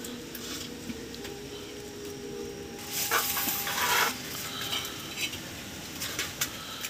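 A steel plate is slid off a hot iron griddle and set down. There is a loud scraping hiss about three seconds in that lasts about a second, then a few light clinks near the end.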